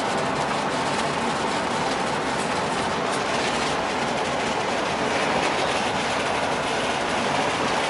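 Steady road noise from inside a van driving at highway speed: an even, unbroken hiss of tyres and engine through the cabin.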